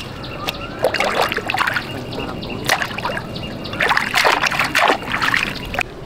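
Water splashing and trickling in irregular bursts.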